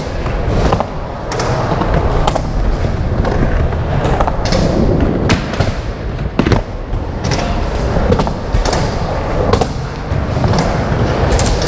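Skateboard wheels rolling over concrete and wooden ramps with a steady low rumble, broken again and again by sharp clacks and thuds of the board, including a grind along a ledge partway through.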